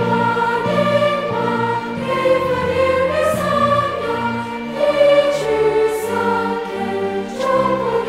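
A large crowd singing a school song in Chinese together, accompanied by a live orchestra.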